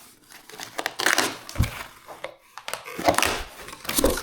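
A cardboard box and its packing being handled: irregular crinkling and scraping, with a dull knock about a second and a half in and another near the end.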